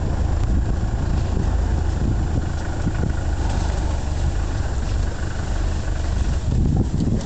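Game-viewing vehicle's engine idling steadily.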